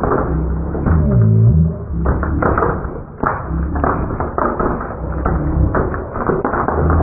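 Jiffy Pop popcorn kernels popping inside the foil pan in a dense, irregular run of pops and knocks, while the pan is shaken on the stove grate.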